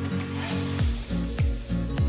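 Electronic dance music: a hissing sweep leads into deep, falling-pitch bass drum hits just under a second in, which repeat about every 0.6 s over a steady bass line.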